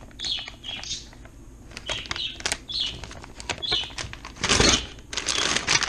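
Packaging of baked goods being handled and opened: scattered crinkling clicks, then two longer rustles near the end.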